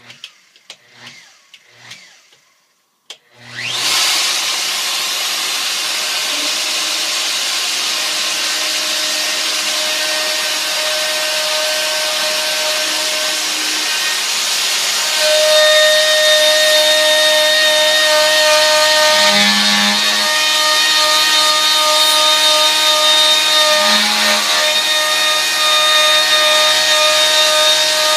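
A few handling knocks, then a Makita plunge router spins up and runs steadily with a whine, its bit cutting into a wood blank turning on a homemade router-lathe. The sound gets louder about halfway through, with a couple of low thumps later on.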